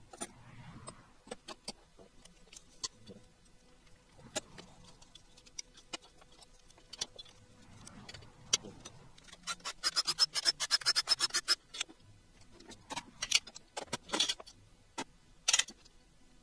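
Metal clinks and clicks of hand tools and engine parts being handled during an engine teardown: scattered sharp clicks throughout, a fast even run of clicks for about two seconds midway, and a few louder clanks near the end.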